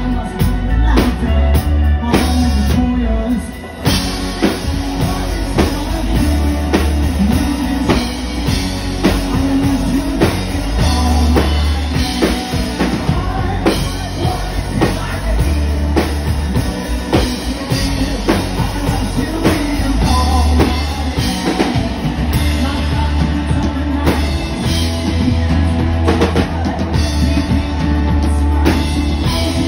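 Live rock band playing: drum kit, electric guitar and a male lead singer through a small venue's PA, with a steady beat. The band thins out briefly about three seconds in, then comes back in full.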